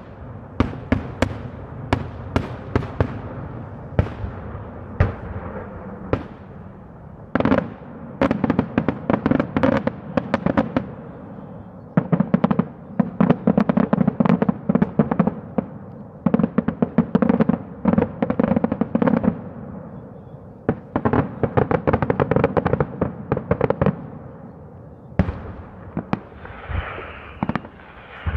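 Daylight fireworks display: aerial shells bursting overhead in sharp bangs, massed into dense rapid volleys that come in waves every few seconds.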